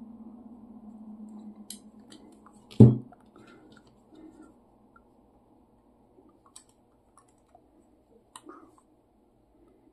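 Handling noise from an Insta360 X3 action camera being turned over in the hands: scattered light clicks and rubbing, with one sharp loud knock about three seconds in. A low steady hum fades out before the knock.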